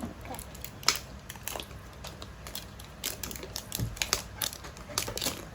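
Crinkling and crackling of a surprise-egg wrapper being torn open and handled, a run of irregular sharp clicks with a louder snap about a second in and a dull thump near four seconds.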